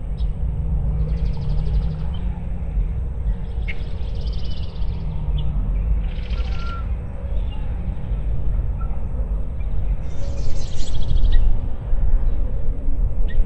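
Lakeside birds calling over low wind noise on the microphone: about four high, rapidly pulsed buzzy calls and a few short chirps.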